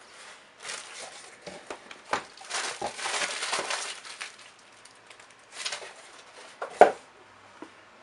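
Cardboard shipping box and packaging being handled: scraping and rustling of cardboard with scattered light clicks, and one sharp knock near the end.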